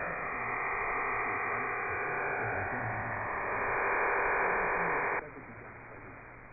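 HM01 numbers station's digital data burst received on shortwave through an SDR in AM mode: a dense, even signal that cuts off suddenly about five seconds in, leaving only band static.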